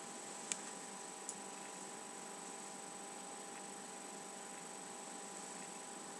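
Steady electrical hum and hiss in the background, with two faint short clicks about half a second and a second and a quarter in.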